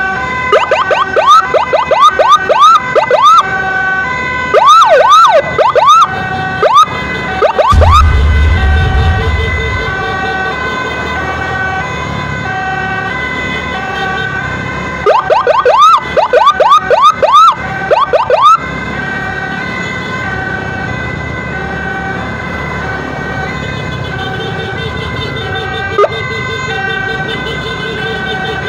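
Emergency siren in a steady two-tone hi-lo alternation, with loud spells of fast rising-and-falling siren chirps over it, near the start, about five seconds in and again around fifteen to eighteen seconds. A low rumble about eight seconds in.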